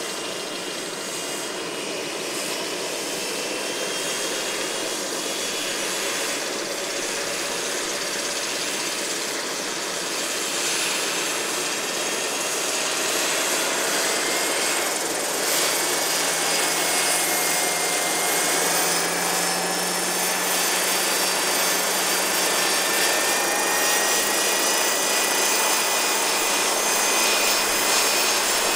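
Radio-controlled scale Bell 47G-3B-1 helicopter running: a steady rush of rotor and drive noise with several whining tones that slowly rise in pitch as it grows gradually louder.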